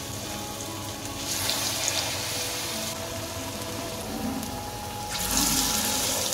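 Batter-coated white gourd fritters frying in hot oil in a kadai, with a steady sizzle. The sizzle swells louder about a second in and again about five seconds in. Faint background music plays underneath.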